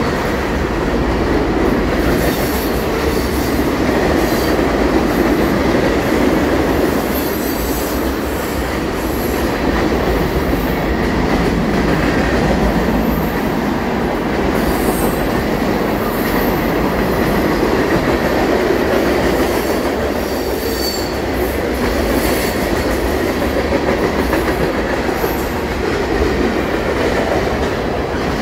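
Freight train of tank cars and other freight cars rolling past close by, with a steady rumble of steel wheels on rail. Short high-pitched wheel squeals come and go.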